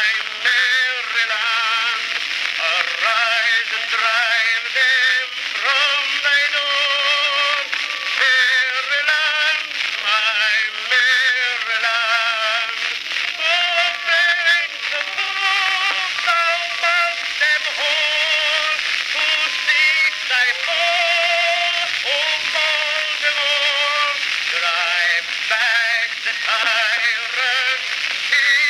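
Edison cylinder phonograph with a brass horn playing a two-minute cylinder record of a singer with heavy vibrato. The sound is thin and tinny with no bass, over a steady hiss.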